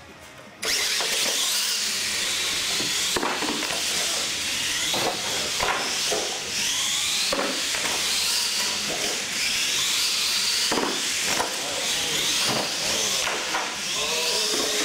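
R/C monster truck racing across a concrete floor: its motor and gears whine, rising and falling in pitch with the throttle, over a hiss of tyres, with scattered knocks as it bounces over the course. It starts suddenly about half a second in.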